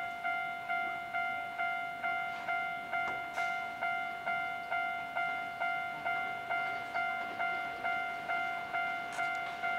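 Japanese level-crossing warning bell ringing. A single-pitched electronic bell strikes evenly, nearly three times a second, and each stroke rings and fades before the next, signalling that a train is approaching.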